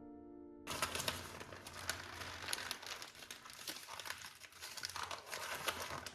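Packaging being handled and crinkled by hand, a dense crackling with many small clicks that starts about a second in.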